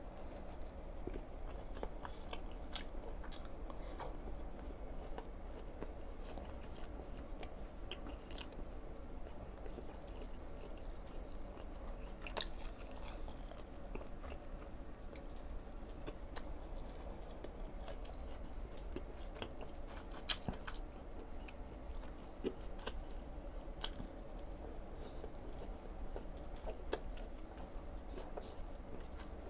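Close-up chewing and biting of grilled beef sausage, with wet mouth clicks and a few sharper clicks scattered through.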